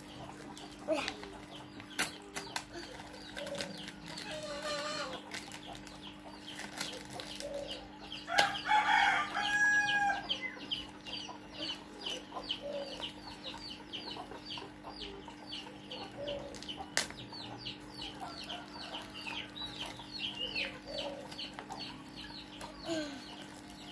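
A rooster crows about eight seconds in, the loudest sound here. Short chirps follow at a few a second, with scattered clicks and rustles from packaging being handled over a steady low hum.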